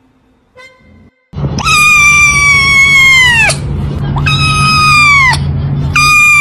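Fluffy white kitten meowing loudly: three long, drawn-out meows in a row, each held on one pitch and then dropping away at its end, starting about a second in. A steady low hum runs beneath them.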